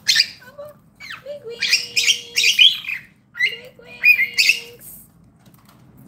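Pet cockatiels chirping and squawking in three harsh, scratchy clusters of calls, with a steady lower held note sounding under the second and third.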